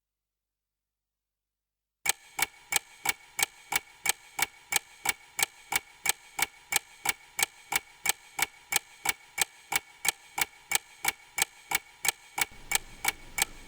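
Steady, evenly spaced sharp ticks, about four a second, in the manner of a ticking clock, starting after about two seconds of silence. A faint background comes up under the ticks near the end.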